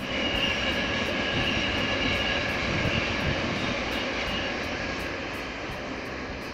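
Electric passenger train running across a high brick railway viaduct: a steady rumble with a high whine. The whine fades about halfway through and the whole sound eases slowly as the train draws away.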